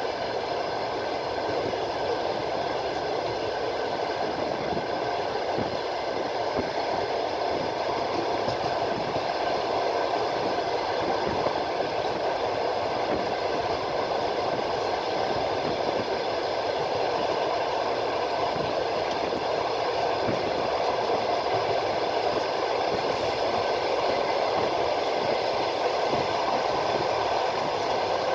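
Train running steadily along the line: continuous noise of wheels on rail, with a few faint steady whining tones over it.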